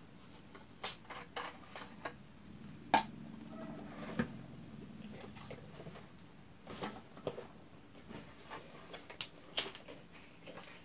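Plastic bottles handled on a tabletop: caps unscrewed and opened on an empty water bottle and a bottle of white glue, giving scattered sharp clicks and knocks a second or two apart.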